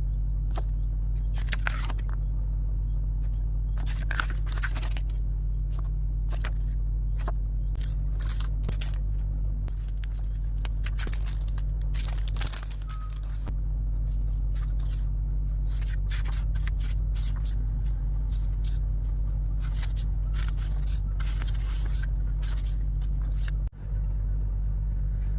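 Irregular short rustles and scrapes of packaging and stationery being handled, over a steady low hum.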